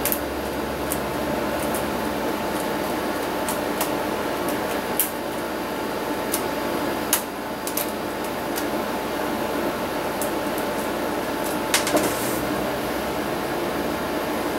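Steady background hum with scattered small clicks and taps from a small pick working at a laptop's plastic screen bezel; a few clicks stand out about 7 seconds in and near 12 seconds.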